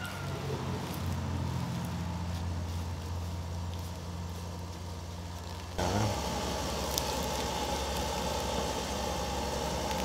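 Steady low engine hum of a motor running in the background. The sound changes abruptly about six seconds in, with a higher steady drone after that point.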